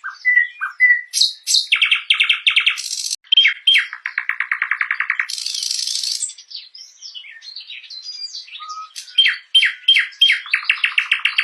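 Nightingale singing a run of varied phrases: short whistles, fast trills of rapidly repeated notes, and harsh buzzy bursts, one after another with brief pauses between.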